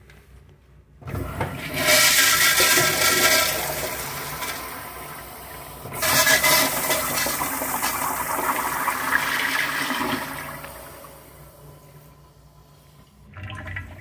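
A 1960-1970s Crane Walton toilet flushing through its flush valve. A sudden loud rush of water starts about a second in and eases off, then surges again suddenly about six seconds in before tapering away. The uploader calls this flush abruptly short.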